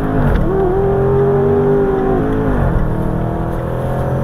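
Range Rover Sport SVR's 5.0-litre supercharged V8 heard from inside the cabin while driving. The engine note rises sharply as it is opened up, holds, then falls about two and a half seconds in and settles lower.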